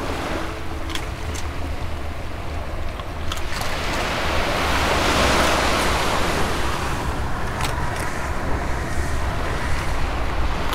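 Surf washing onto a beach. One wave swells up about halfway through and fades away, over a steady low rumble of wind on the microphone, with a few faint clicks.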